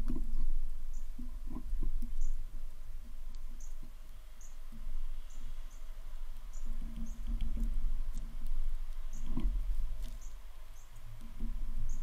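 Short, high bird chirps repeating irregularly about once a second, over a steady low rumble, with a few dull knocks.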